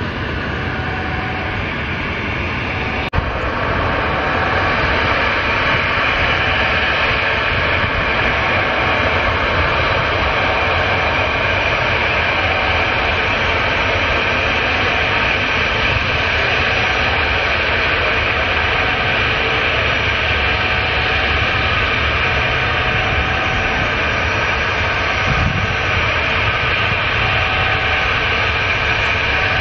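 Garuda Indonesia Boeing 737 twin-jet's engines running steadily as it taxis on the runway: a loud, even rushing noise with a high whine.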